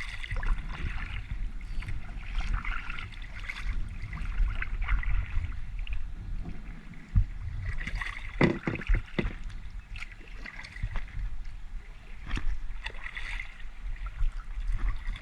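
Kayak being paddled: paddle strokes and water splashing and dripping, with a low rumble and several sharp knocks, the loudest a cluster about eight to nine seconds in.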